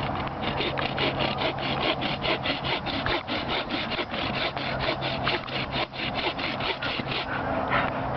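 Hand saw cutting through a Christmas tree trunk in fast, even back-and-forth strokes, the strokes thinning out near the end.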